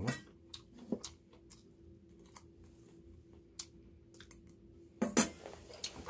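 A person eating quietly at a table: scattered soft clicks and taps of chewing and of chopsticks or a spoon on dishes, over a faint steady hum, with a louder clatter about five seconds in.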